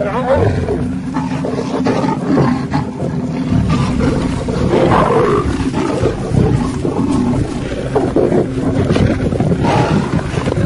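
Several lions snarling and growling as they fight, loud and without a break.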